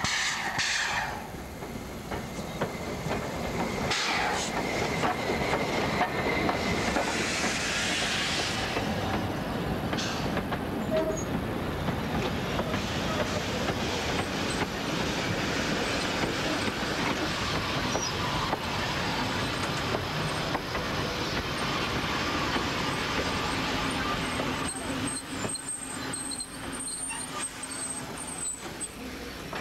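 W class 4-8-2 steam locomotive W934 passing with a train of wooden passenger carriages. Its exhaust beats and hissing steam come first, with bursts of hiss at about four and eight seconds. Then the carriage wheels rumble and clack over the rail joints, with a faint high wheel squeal near the end.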